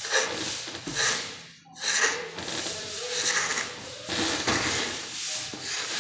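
A long straightedge is scraped and rubbed across a plaster of Paris ceiling in repeated strokes, about one a second, smoothing the plaster surface.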